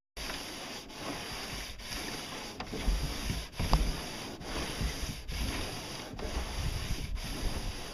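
Hand sanding block rubbed back and forth along a boat hull in steady strokes, about one a second. There are a couple of louder knocks near the middle.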